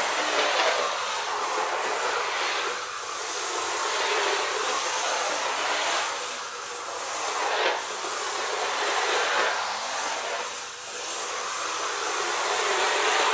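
Brushed electric motor and gears of a mini Atomic DRZ3 MP RC drift car whirring as it is driven, swelling and easing with the throttle every second or two, its tyres sliding on a laminate floor.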